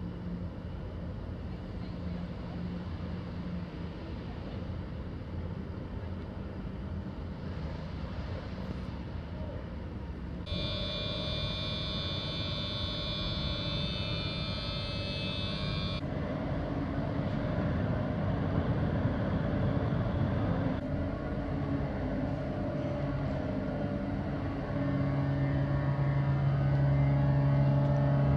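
Steady low engine and machinery drone at a canal lock: an inland cargo ship's diesel and the lock gates' machinery. A high steady whine joins in for about five seconds in the middle, and a stronger low hum sets in near the end.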